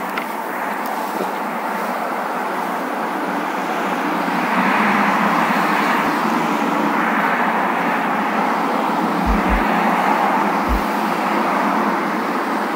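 Steady rush of outdoor road traffic that grows louder about four seconds in, with a few dull low thumps near the end.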